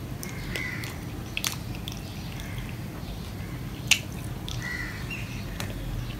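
Person eating rice by hand from a steel plate: wet chewing and lip-smack clicks, with fingers mixing and picking up food, the sharpest click a little before the middle. Two short high calls sound, one soon after the start and one about three-quarters of the way through, over a steady low hum.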